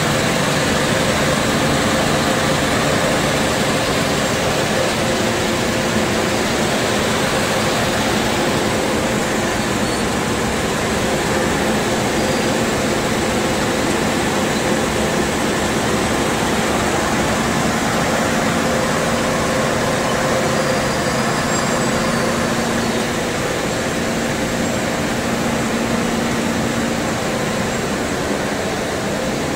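Panko bread crumb production machinery running steadily: a continuous mechanical drone of motors and fans, with a few held tones over the noise.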